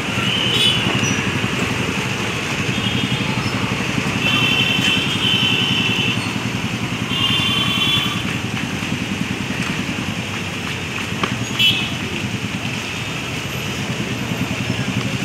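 Street ambience: a steady wash of road traffic with background voices, and now and then a short, high-pitched beep.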